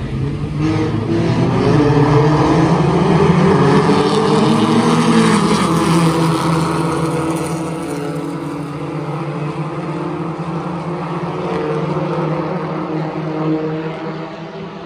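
Several Pure Stock race car engines running as a line of cars rolls past. The sound swells and peaks for a few seconds, with engine pitch rising, then eases and swells again briefly near the end.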